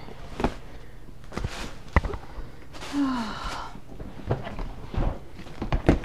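Items clacking and knocking in a plastic storage tote as it is packed: a handful of separate sharp knocks with some rustling. A short vocal sound falling in pitch about three seconds in.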